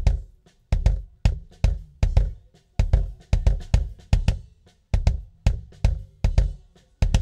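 Recorded kick drum track played back soloed through a Behringer X32 digital mixer with EQ, compression and a noise gate applied: a run of deep kick hits about two to three a second, each dying away to near quiet before the next as the gate shuts out the bleed between strokes.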